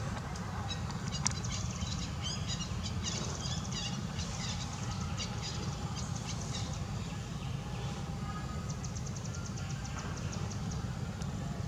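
Birds chirping in quick high trills and rattling series, over a steady low rumble, with one sharp click about a second in.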